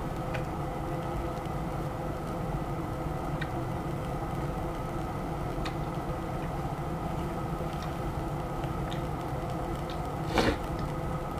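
A steady mechanical hum, like a small electric motor running, with a few faint clicks scattered through it. A short puff of noise, like a sniff or breath, comes near the end.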